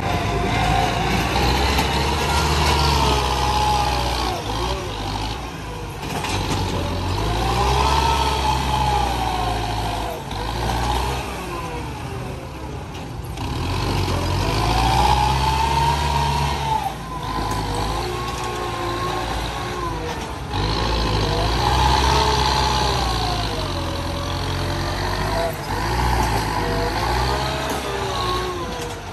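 Diesel engine of a compact farm tractor running under load and revving up and down repeatedly as its front blade pushes dumped soil, the pitch rising and falling every few seconds.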